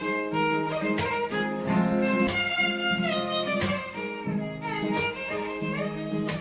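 Background music led by violin, with sliding notes over a string accompaniment and a regular beat.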